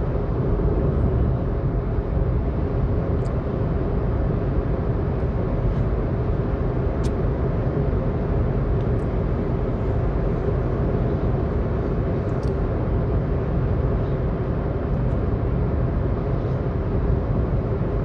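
A car cruising at highway speed: steady tyre and road rumble with a faint, even drone running through it.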